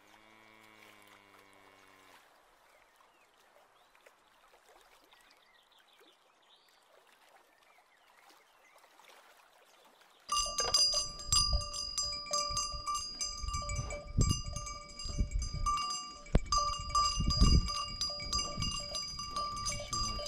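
A brief low moo-like call, then a quiet stretch. About halfway through, a cow's bell starts ringing almost without pause, its several tones held and jangling, with wind rumbling on the microphone.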